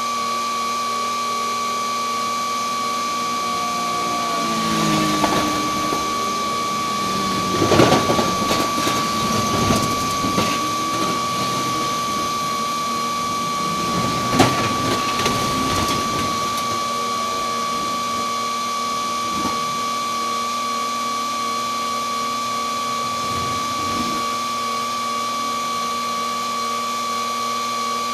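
A steady high-pitched mechanical whine, with louder rough rumbling noise swelling twice, a few seconds in and again around the middle.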